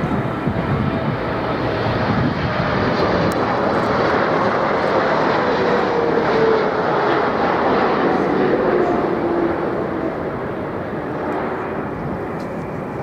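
Jet airliner flying past low on approach to land, its engine roar swelling and then easing, with a whine that falls in pitch as it goes by.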